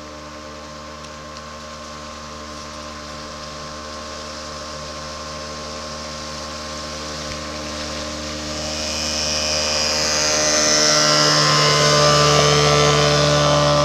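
Small vintage outboard motor on an inflatable dinghy, running at a steady speed and growing much louder as the boat comes close, with the hiss of its wake spray rising near the end.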